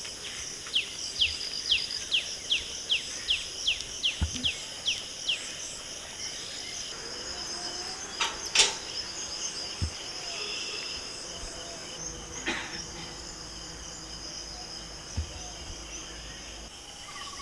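Steady high buzz of insects, with a bird calling a quick series of about a dozen descending chirps over the first five seconds. About eight and a half seconds in comes a sharp metal clank from the wrought-iron gate being opened, and a fainter knock a few seconds later.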